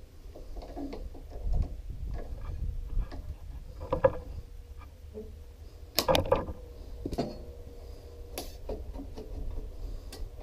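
Hands and pliers working a lawn tractor's carburetor fuel line off: scattered clicks and knocks of metal parts and tools, the loudest about four and six seconds in.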